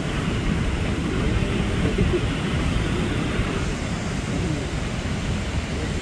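Waterfall pouring into a pool: a steady rushing noise, heaviest in the low end.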